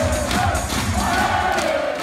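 Large arena crowd chanting together over loud PA music with a steady bass beat; the music drops out near the end, leaving the crowd's chant.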